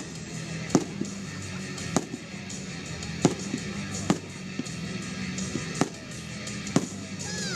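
Fireworks bursting, about six sharp bangs spaced roughly a second apart, over steady background music. Near the end a whistling firework begins, falling in pitch.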